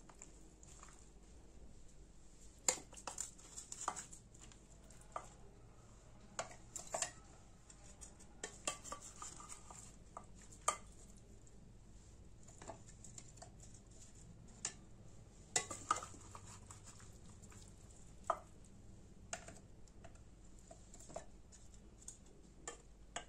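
Plastic spatula and scoop scraping and knocking against a glass mixing bowl and a plastic food-chopper bowl as pieces of fried chicken, bread and pepper are stirred and scooped in: irregular light clicks and taps, busiest in the first half.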